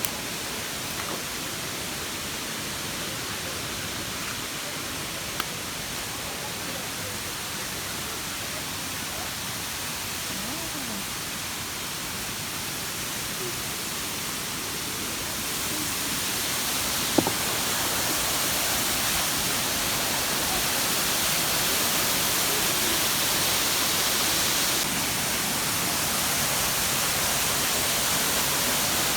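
Steady rush of a waterfall: an even hiss of falling water that grows louder about halfway through and eases slightly near the end, with one sharp click.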